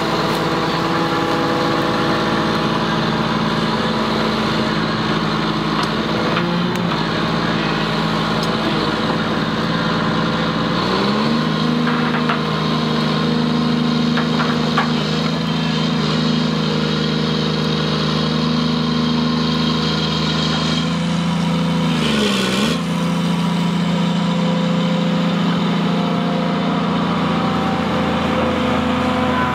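Hydraulic excavator's diesel engine running steadily. About a third of the way in it steps up to a higher speed as it takes the load of dragging a vehicle out on a strap, then briefly dips and recovers about three-quarters of the way through.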